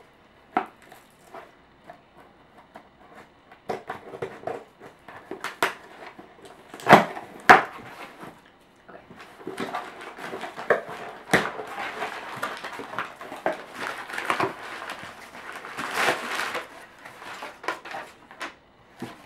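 Cardboard shipping box being opened by hand: scissors snipping at the packing tape and small knocks and scrapes on the cardboard, with two sharp knocks about seven seconds in. Then a long stretch of paper and packing material rustling and crinkling as the contents are pulled out.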